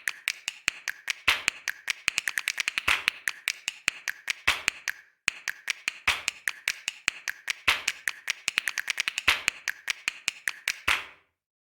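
A rapid, irregular series of sharp clicks or taps, several a second, with a short pause about five seconds in, stopping about a second before the end.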